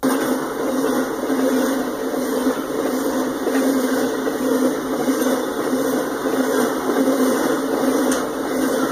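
Empty intermodal well cars rolling past at speed: a loud, steady rumble and rattle of steel wheels on rail that starts suddenly.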